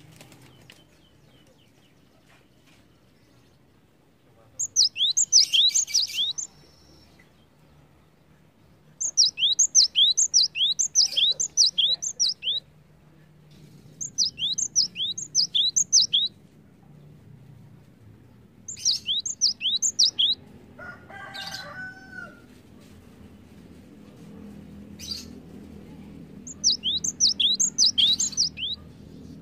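Cinereous tit (gelatik batu) calling in five quick bursts, each a fast run of high, steeply falling notes lasting about two to three seconds. There is a brief lower call about two-thirds of the way through, and a low hum underneath.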